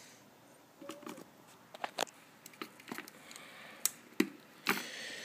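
A DDR3 RAM stick being pressed into a motherboard's memory slot: a few sharp plastic clicks, a second or less apart, as the module seats and the slot's retaining clips snap shut. Softer handling ticks fall between them.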